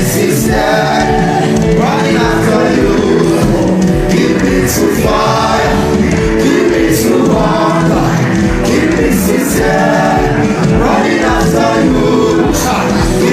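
Gospel worship music with group singing over a steady beat.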